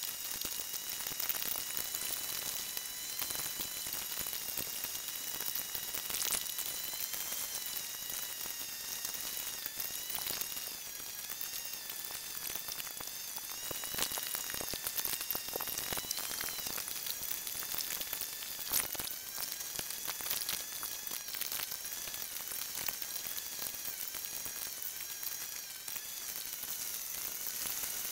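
Road and engine noise inside a moving car, played back sped up: a crackling hiss with several high whining tones that waver up and down in pitch together, and a few sharp ticks.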